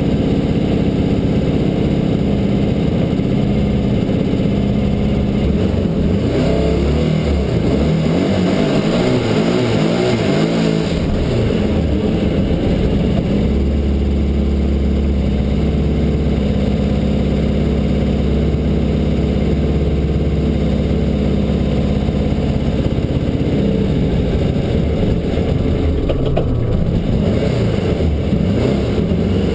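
Turbocharged VW Beetle drag car's engine running at idle, heard from inside the caged cockpit. Between about six and eleven seconds in its pitch wavers up and down, then it settles back to a steady idle with a deep low drone.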